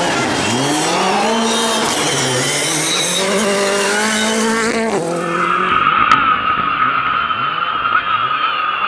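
Ford Fiesta rally car's turbocharged four-cylinder engine revving hard, its note rising and dropping through gear changes as the car slides past with tyres skidding on gravel. About five seconds in, the sound cuts abruptly to a steadier high engine note from a car further off.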